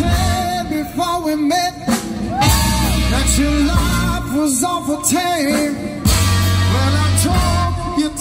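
Live band with a saxophone section and a lead singer playing through stage loudspeakers, over a deep, steady bass line.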